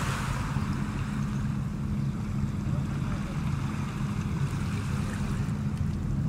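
Steady low drone of a running motor, with wind buffeting the microphone.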